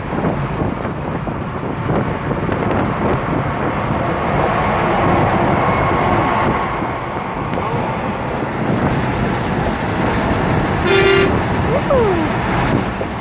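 Steady road traffic noise from passing vehicles, with one short horn toot about eleven seconds in.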